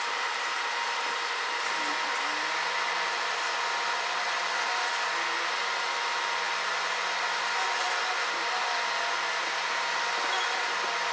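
Cheap Harbor Freight electric buffer running steadily with its pad pressed against a boat hull: an even whir with a thin, steady whine. The polisher shakes as it turns slowly.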